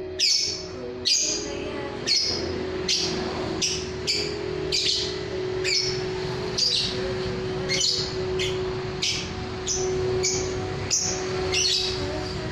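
Lovebird chirping repeatedly: short, shrill calls that each drop in pitch, about two a second, over a steady low hum.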